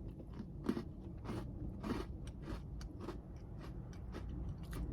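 Crunchy chocolate chunk cookie being chewed close to the microphone, with irregular crunches about every half second over a low steady rumble.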